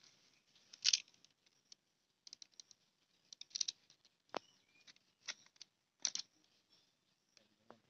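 A utility knife cutting into a green banana on a banana leaf: short, crisp slicing scrapes, the strongest about a second in, about three and a half seconds in and about six seconds in, with sharp little clicks and leaf rustles between.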